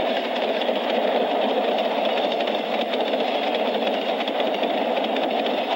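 Frisco freight train's boxcars rolling past close by, a steady, unbroken rumble of wheels on rail. The old film soundtrack has little bass.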